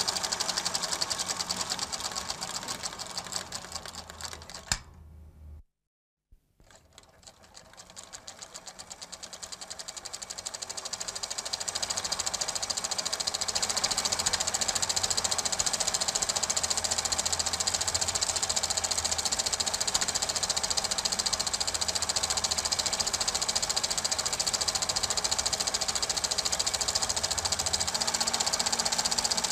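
Super 8 film projector running with a fast, steady mechanical clatter. It fades out about five seconds in, stops for about a second, then comes back and slowly builds to full level.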